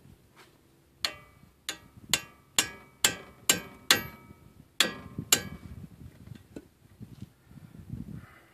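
Hammer striking metal during front axle hub and bearing removal. Nine sharp ringing blows come about two a second, with a short pause before the last two, then stop a little past halfway.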